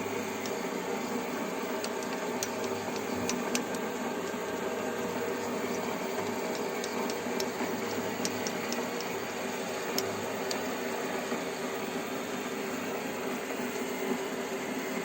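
WM210V-400 benchtop metal lathe running at a steady speed, a constant motor-and-drive hum with scattered light ticks.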